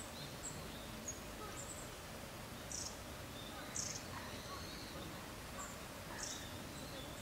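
Outdoor ambience with small birds giving scattered short, high chirps, about one every second, over a steady low background rumble.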